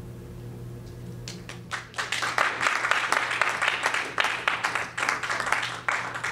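Audience applauding: clapping starts about a second in, quickly builds to full applause and keeps going, over a steady low room hum.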